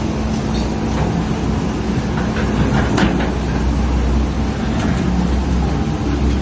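Amphibious excavator's diesel engine running steadily, with a few short knocks in the middle.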